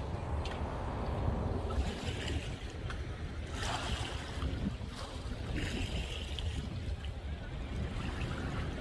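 Wind rumbling on the microphone over the wash of seawater against the shore, with a brief rise in the splashing about halfway through.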